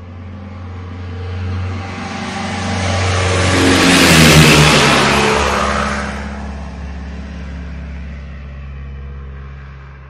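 A car driving past: its engine sound swells to a peak about four seconds in, drops in pitch as it passes, then fades away.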